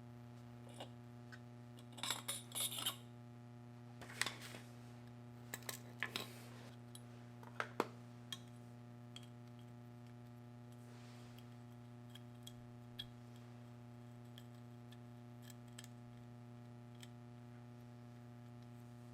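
Small metal parts of a washer's clutch assembly clicking, clinking and scraping under hand work, in short clusters over the first eight seconds and then a few scattered ticks. A steady low hum runs underneath.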